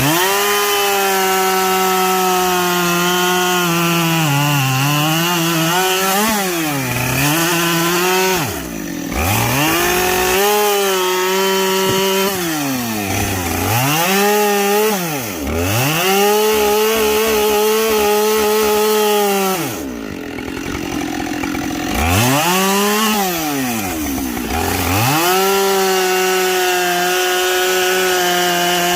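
Two-stroke chainsaw running at full throttle while bucking logs. The engine note falls away and climbs back up several times as the throttle is let off and squeezed again between cuts.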